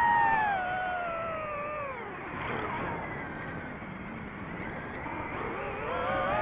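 FPV drone's electric motors whining. The pitch glides down and fades as the throttle drops into a dive, a rough rushing hiss fills the middle, and the whine rises again near the end as the throttle comes back up.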